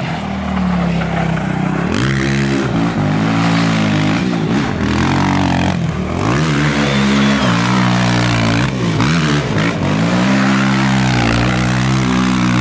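Sport quad (ATV) engine revved hard again and again, its pitch climbing and dropping about every one to two seconds as it spins its rear tyres in a smoky burnout.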